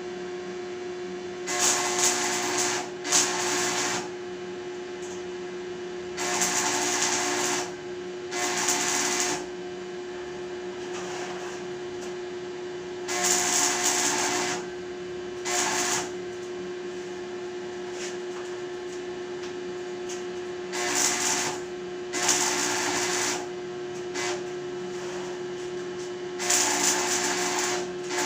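Electric arc welding on a metal gate: about nine short welds, each a second or two of crackling, hissing arc noise, over a steady hum from the welding machine.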